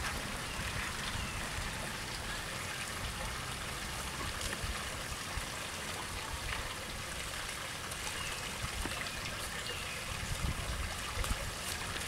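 Shallow creek water trickling steadily.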